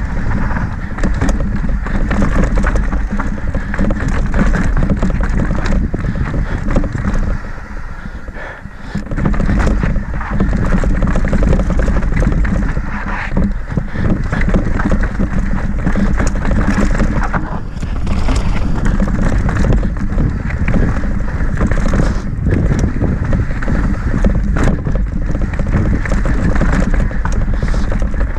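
Mountain bike descending a rocky dirt trail: tyres rolling over dirt and rock, with frequent knocks and rattles from the bike over the rough ground. Heavy wind buffeting on the bike-mounted camera's microphone; it eases briefly about eight seconds in.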